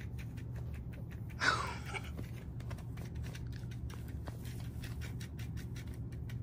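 Soft scuffling and faint clicks of a cat wrestling and biting a plush electric flopping fish toy on carpet, over a steady low hum. One short breathy rush of noise comes about a second and a half in.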